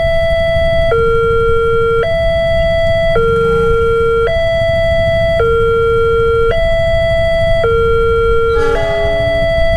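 Electronic railway level-crossing alarm alternating between a higher and a lower tone, each held about a second, the warning that a train is approaching and the crossing is closed.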